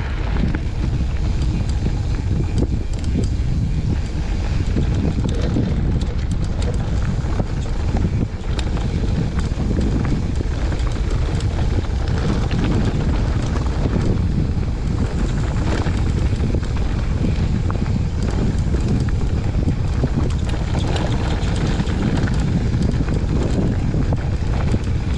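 Wind buffeting the microphone of a camera on a moving mountain bike, a steady low rumble, with the tyres rolling over a gravel and dirt track and the bike giving many short rattling clicks.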